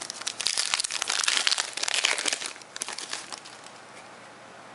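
Plastic wrapper of a Topps Finest baseball card pack crinkling and crackling as it is torn open by hand: a dense run of crackles that dies away after about three and a half seconds.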